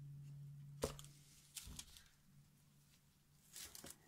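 Quiet handling of paint containers: a sharp click about a second in, a soft knock, and a few small clicks near the end as a cup is set aside and a glass jar of paint is picked up. A faint low hum fades out during the first two seconds.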